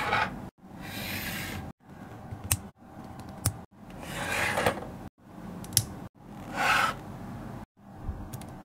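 Plastic LEGO bricks being handled and pressed together by hand: rubbing and sliding noises with a few sharp clicks, broken up by short silent gaps every second or so.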